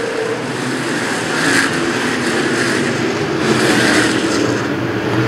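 A field of dirt-track stock cars racing under green on a restart, many engines accelerating together and blending into one steady noise that builds slightly as the pack comes around.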